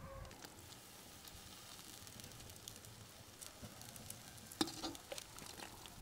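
Faint sizzling of food frying in a pan on a wood-burning stove, a steady crackle of small pops, with one sharper click a little over halfway through.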